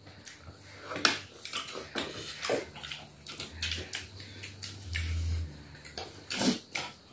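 Several people eating at a table: chewing and mouth noises, with scattered short clicks of spoons against steel plates and bowls.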